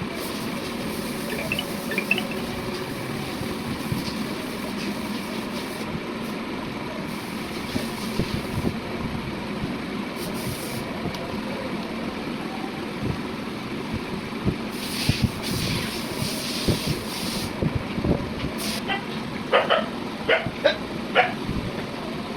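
Steady mechanical hum, with a dog barking several times near the end.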